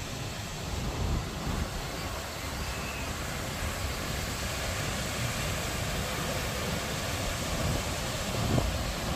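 Ocean surf washing onto a sandy beach, a steady rush, with wind buffeting the microphone.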